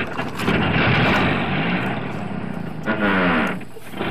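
Plastic toy dump truck loaded with rocks pushed over stones and gravel, its wheels and load crunching and rattling, with a low engine-like hum that rises and falls.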